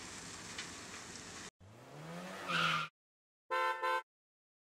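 Logo sound effect of a cartoon car: an engine revving up in pitch and levelling off, ending in a short tyre screech, then after a brief silence two quick beeps. A faint steady hiss runs underneath until it cuts off early on.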